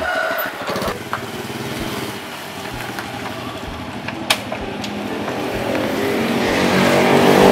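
Small motor scooter engine running, growing steadily louder toward the end, with one sharp click about four seconds in.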